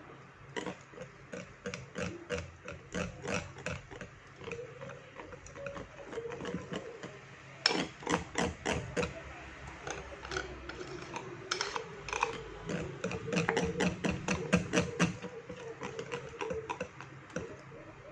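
Whisk or spoon stirring a bowl of pancake batter, knocking against the sides in quick irregular clicks, most densely in two bursts in the middle and later part.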